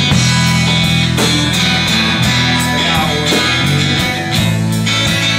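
Live rock band playing an instrumental passage: strummed acoustic guitar and electric guitar over bass guitar and drums, with a steady beat.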